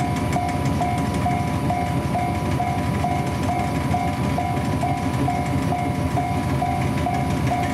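Train running with a steady rumble, while an electronic warning bell rings evenly about twice a second, typical of a Japanese railway level crossing.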